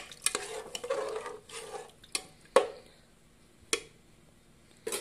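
A steel spatula stirring dal and water in an aluminium pressure cooker, with a scraping swish, then four sharp metal knocks against the pot, the loudest about halfway through.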